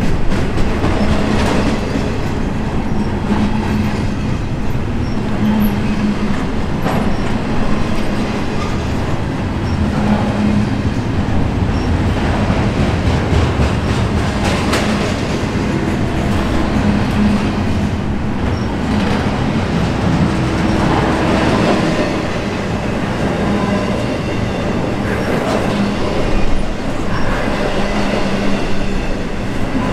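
Intermodal freight train cars rolling past: a steady, loud rumble and clatter of steel wheels on rail, with clicks every few seconds as the trucks cross rail joints.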